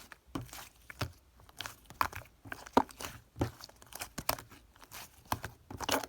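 Soft clay slime being squished and pressed by hand, giving irregular crackling pops and squishes, roughly two a second.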